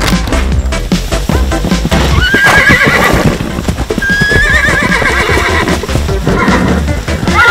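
Horse whinnies, several quavering calls a couple of seconds apart, over upbeat electronic background music with a steady beat.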